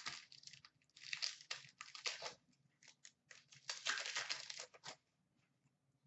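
Upper Deck hockey card pack wrappers being torn open and crinkled by hand, with the cards being handled, in several short bursts of crackling.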